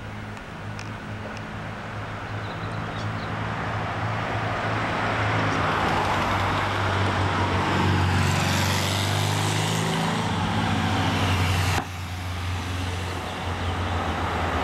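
Car engine hum and road noise heard from inside a moving car: a steady low drone under a rushing noise that swells about halfway through. The sound breaks off suddenly near the end and picks up again.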